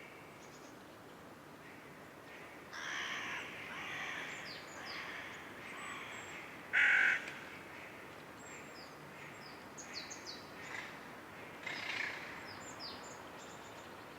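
Wild birds calling: a few seconds of harsh, raspy calls, then one loud short call about seven seconds in, with small birds chirping in short falling notes toward the end.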